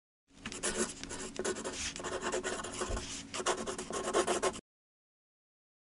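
Pen scratching across paper in quick strokes, as in writing a signature. It stops abruptly about four and a half seconds in.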